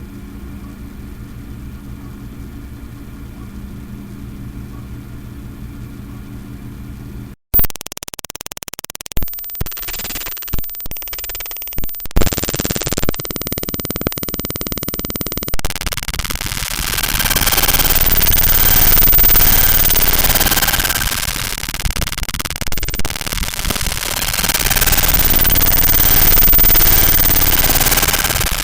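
A run of synthetic computer sound effects. A steady low electronic hum cuts off abruptly about seven seconds in and gives way to scattered sharp clicks and short steady beeps. From about halfway through, a loud noisy electronic glitch texture swells and falls twice.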